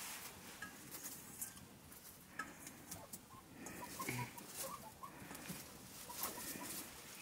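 Steel bowls being handled, with soft scattered clinks, and a few faint short calls in the background.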